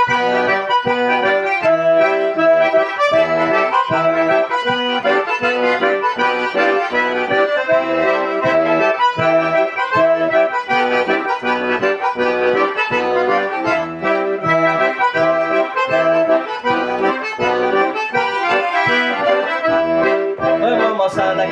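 Two accordions playing an instrumental forró xote together: a bouncy, regular bass-and-chord accompaniment under a sustained, reedy melody line.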